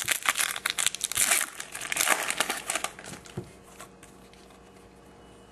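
Crinkling and rustling of a 2012 Topps Chrome baseball card pack wrapper being handled, a quick run of crackles that dies away about three and a half seconds in.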